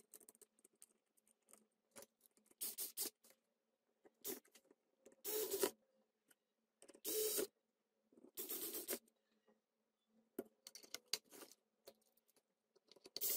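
Handling noise from a metal-cased switching power supply being put back together: about six short scrapes of sheet metal, with small clicks and taps between them, as its perforated cover is fitted back on.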